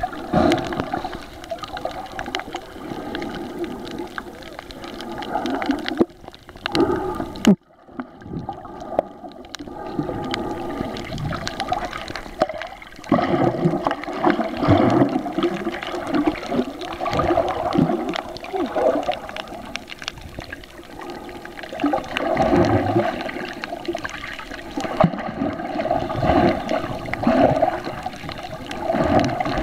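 Muffled underwater water noise on a waterproof camera's microphone: sloshing and gurgling that swells and fades every few seconds, dropping away sharply about seven seconds in before building again.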